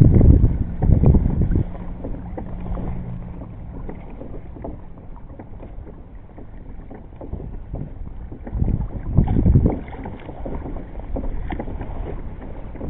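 Wind buffeting the microphone in gusts over the low sound of a kayak moving on the water. The gusts are loudest at the start and again about nine seconds in.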